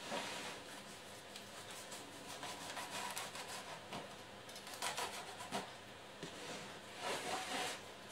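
Kitchen knife sawing through a carrot cake loaf onto a cutting board: soft scraping strokes, several of them louder, around the middle and near the end.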